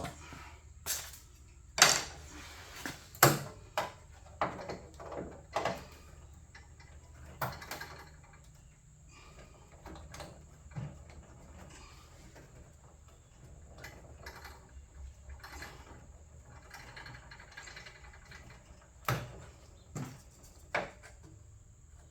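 Irregular sharp knocks and taps on a sheet-metal hood patch panel as its edge is worked up into alignment. There is a burst of knocks over the first several seconds, then a quieter stretch, then three more knocks near the end.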